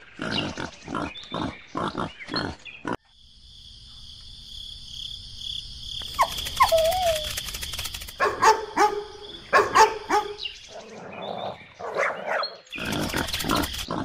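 Pigs grunting and squealing, laid on as sound effects: quick runs of short grunts in the first three seconds and again from about halfway, with one squeal about six seconds in. A steady high-pitched tone runs underneath from about three seconds in.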